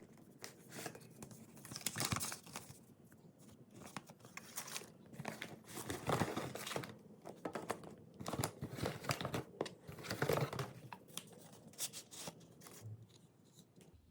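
Paper or packaging crinkling and rustling, handled in irregular bursts, with some tearing.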